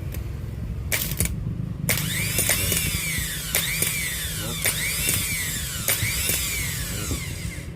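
A small electric motor whirring in repeated pulses with sharp clicks. A couple of clicks come about a second in, then a steady run with rhythmic rises and falls.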